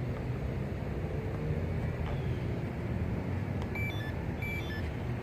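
Steady low outdoor rumble, with two short high electronic beeps about four seconds in.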